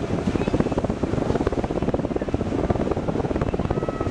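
Tour boat's engine running with a rapid, steady chugging, heard from on board, with some wind on the microphone.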